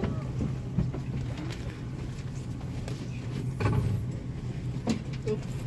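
Boat engine idling with a steady low hum under rumbling wind and water noise, and a short rushing burst about three and a half seconds in.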